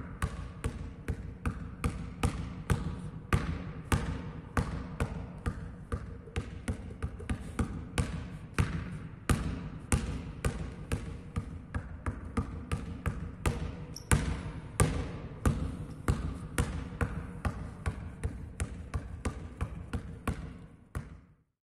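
Basketball dribbled steadily on a sports hall floor, about two to three bounces a second. The bouncing cuts off suddenly near the end.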